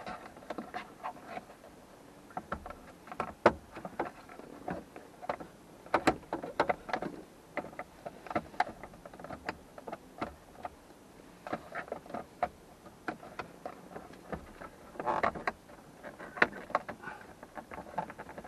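Irregular clicks, taps and knocks of hands and tools working on the 1991 Miata's plastic gauge cluster cover as it is pried and worked loose from the dashboard.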